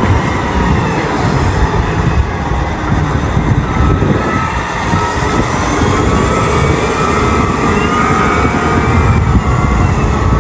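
Caterpillar 990 wheel loader's diesel engine running hard as it tips a bucket of coal into a truck's trailer, a loud, steady rumble of engine and machinery.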